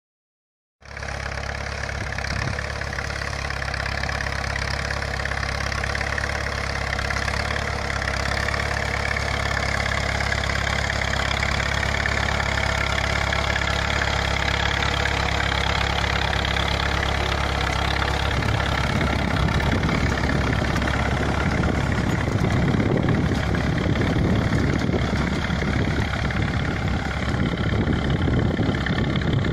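Fiat Someca Som 45 tractor engine running steadily under load while pulling a disc harrow. The sound starts abruptly about a second in, and a rougher, irregular low rumble joins about two-thirds of the way through.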